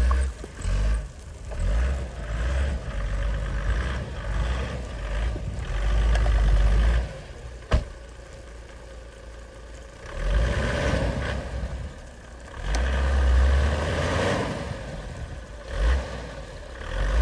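Toyota 1HD-FT 4.2-litre straight-six turbo-diesel being revved several times, swelling and dropping back between blips, with one sharp click about eight seconds in.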